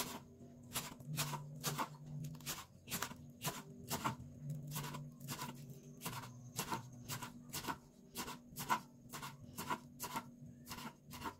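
Kitchen knife slicing spring onions on a wooden cutting board: a faint, even series of cuts, about two to three a second, each one the blade knocking through onto the board.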